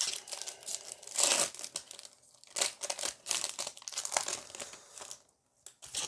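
Foil Pokémon TCG booster pack crinkling as it is opened by hand: an irregular run of crackles, loudest about a second in, that stops about five seconds in.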